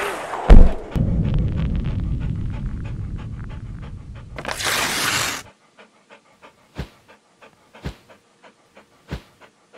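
Logo sound effects of a dog panting in quick rhythmic breaths, with a sharp hit about half a second in and a whoosh around the middle. The last few seconds hold soft regular ticks and three low thumps.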